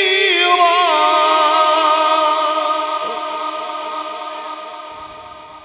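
Male Quran reciter's voice drawing out a long melodic note in tajweed-style recitation through a microphone. The note wavers in an ornament at first, then is held steady and fades away gradually over the last few seconds.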